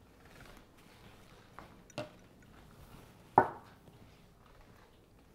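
A few sharp knocks: two small ones around one and a half and two seconds in, and a much louder one about three and a half seconds in.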